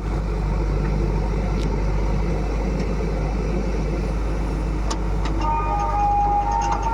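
Diesel engine of a heavy machine running steadily with a low rumble. A faint held high tone joins about five seconds in.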